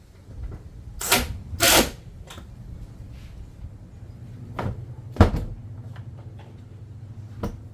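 Parts being handled during reassembly of a car's rear trim: two short loud scraping swishes about a second in, then a sharp knock a little after five seconds and a lighter knock near the end.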